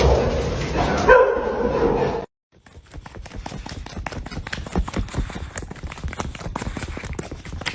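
A dog gives a couple of short pitched barks or whines, then the sound cuts off. After that comes a quieter run of quick, irregular clicks and taps.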